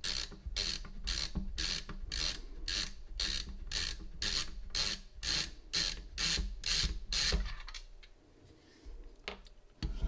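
Stubby ratcheting screwdriver clicking in quick bursts, about two to three a second, while backing out a small case screw. The clicking stops about seven seconds in, leaving a couple of faint clicks near the end.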